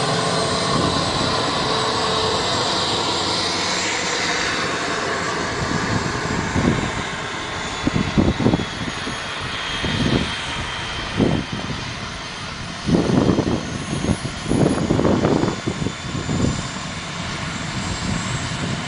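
Airworld BAe Hawk RC model jet's engine running with a steady hiss and a high whine that slowly shifts in pitch. From about six seconds in, irregular low gusts of wind on the microphone come and go, louder than the engine.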